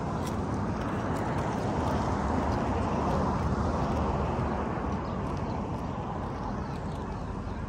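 Steady outdoor rushing noise with a low rumble, swelling about two seconds in and easing off again near the end.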